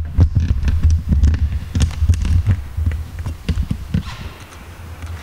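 Camera handling noise: knocks, clicks and a heavy rumble on the microphone as the camera is carried and set up, easing off to a few light clicks after about two and a half seconds.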